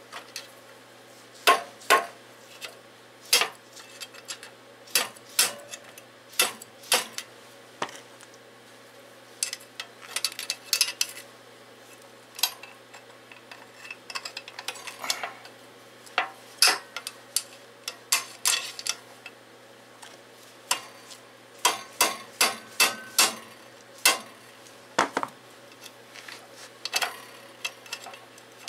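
A steel screwdriver clicking and clinking irregularly against the metal of a stripped-down Briggs & Stratton engine block while prying at a stubborn valve, with sharp metal taps coming singly and in quick clusters.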